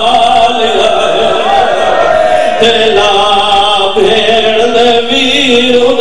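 A man's voice chanting a Shia mourning lament (majlis recitation) into a microphone, in long held, wavering notes with brief breaks for breath.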